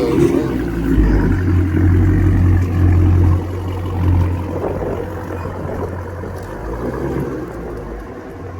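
Dodge Charger's 392 Hemi V8 running through a freshly fitted exhaust with 5-inch tips, with a deep low exhaust note. It is louder for the first three seconds, then drops to a steadier, lower level.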